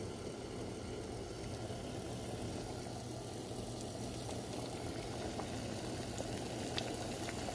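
Water at a full rolling boil in a stainless steel pot on an induction cooktop: steady bubbling over a steady low hum, with a few sharp ticks near the end.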